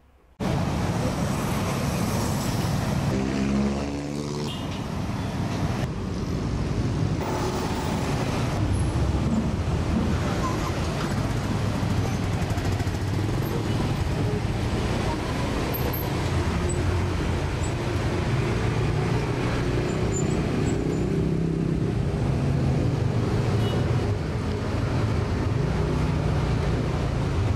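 Busy road traffic: a steady wash of cars and motorbikes passing, with one vehicle's engine note falling in pitch as it goes by about three seconds in.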